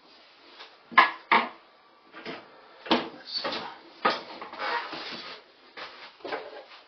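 Sharp knocks and clunks of parts and tools being handled, two close together about a second in, then more knocks and some rustling.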